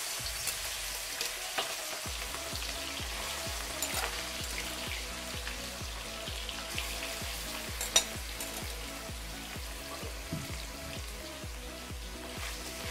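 Marinated chicken pieces sizzling in hot oil in a steel wok as they are dropped in a few at a time and shallow-fried for chicken chilli. There are a few sharp metal clinks of the slotted spoon against the wok, the loudest about eight seconds in.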